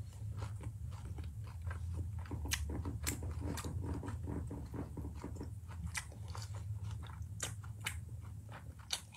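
A person chewing a mouthful of green onion kimchi (pa-kimchi), a dense run of irregular small crunches and clicks, over a low steady hum.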